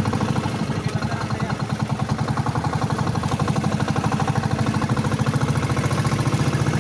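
Outrigger boat's engine running steadily under way, a fast even pulsing chug.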